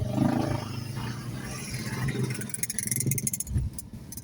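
Vehicle engines running in slow, stop-and-go traffic, a steady low hum, with a light rattling clatter in the middle.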